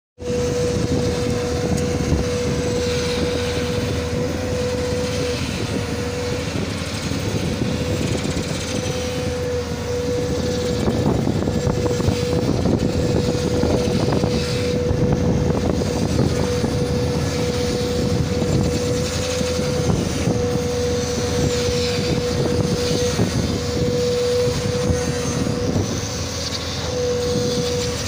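Heavy diesel machinery running steadily: a JCB excavator's engine as it crawls through mud, with a running generator set nearby. A constant whine sits over the engine drone and drops out briefly a few times.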